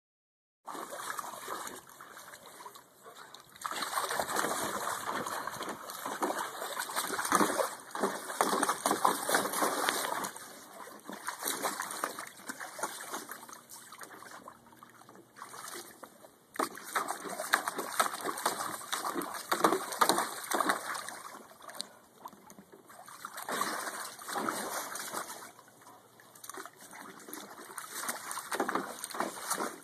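Labrador retriever pawing and stepping in a shallow plastic kiddie pool, the water splashing and sloshing in irregular bursts with quieter lulls between them.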